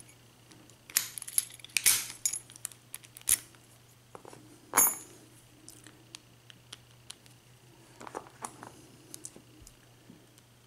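A Master Lock Pro Series 6835 padlock being worked with its key: a scattered run of sharp metallic clicks and clinks from the key and lock body, with one louder snap a little before the middle.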